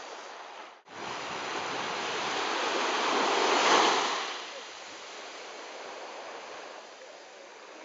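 Small ocean wave breaking at the shoreline and washing up the sand, a steady hiss of surf that swells to its loudest about four seconds in, then eases as the wash runs back. The sound drops out for an instant about a second in.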